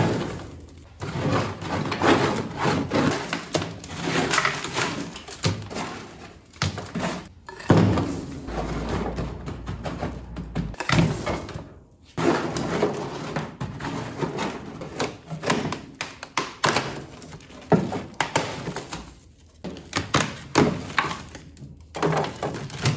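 Chunks of dry ice poured from an aluminium pot, clattering and thudding in quick irregular knocks onto a car's bare steel floor pan. Near the end a scraper pries frozen, brittle sound-deadening sheet off the metal.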